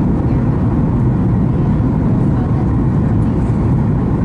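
Cabin noise inside a Boeing 737 MAX 8 on approach: a steady, low rumble of rushing air and its CFM LEAP-1B engines, holding even throughout.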